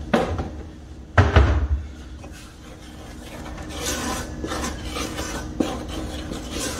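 Wooden spoon scraping and stirring a dry flour and cornstarch mix in a stainless steel bowl, in repeated short strokes from about halfway in. Near the start there is a knock, then a heavier thump about a second in.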